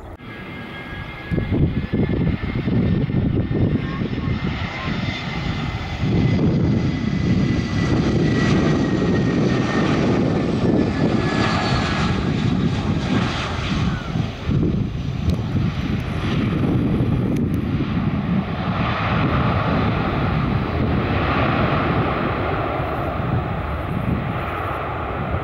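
Airbus A320's CFM56 jet engines at takeoff thrust during the departure roll and lift-off: a loud, steady engine noise with a high whine running through it.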